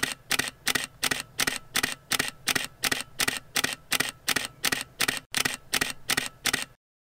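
Camera shutter clicking over and over in a steady rhythm, about three clicks a second, cutting off abruptly near the end.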